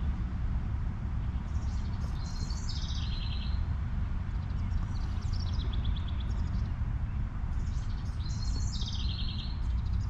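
Wind buffeting the microphone with a steady low rumble. A songbird sings twice, each time a high trilled phrase of about two seconds that steps down in pitch.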